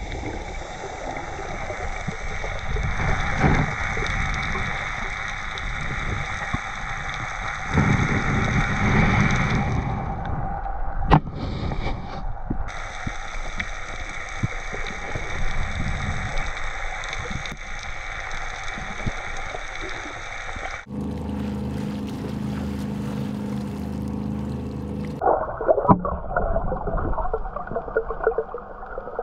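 Muffled underwater gurgling and sloshing picked up by a diving camera, with steady background tones over it that change abruptly several times.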